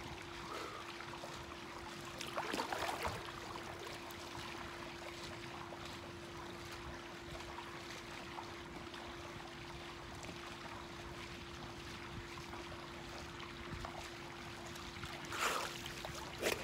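Pool water splashing as a swimmer ducks under about two and a half seconds in and comes back up near the end, over a steady hiss of water and light rain with a faint steady hum.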